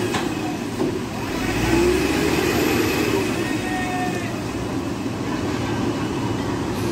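Tata 1109 truck's diesel engine running under load as the truck pulls out of the mud, swelling up and easing off about two seconds in.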